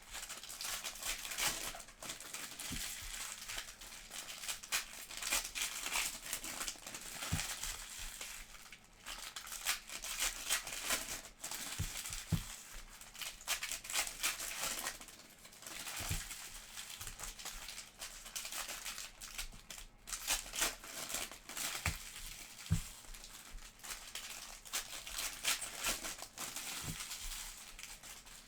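Crinkling and rustling of foil trading-card pack wrappers as Panini Prizm packs are torn open and the cards handled, with a few soft knocks.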